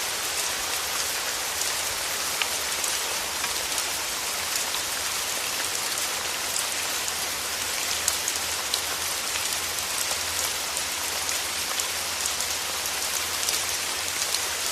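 Steady, heavy rain falling on a surface, with a dense hiss and many individual drop ticks.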